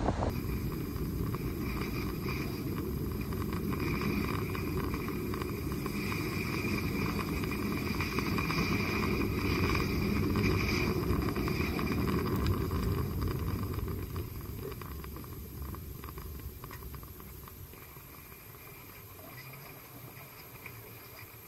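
Low, rumbling wind noise buffeting the microphone, steady at first and fading away over the last several seconds.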